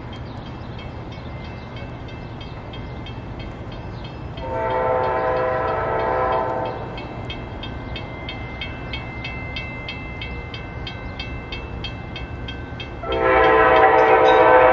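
Horn of an approaching CTrail Hartford Line train sounding a chord of several tones: one blast of about two seconds, then a second, louder blast starting near the end. A faint, even, rapid ticking runs underneath.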